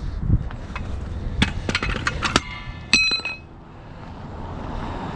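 Metal tools being handled and set down: scattered knocks and clicks, with one ringing metallic clink about three seconds in.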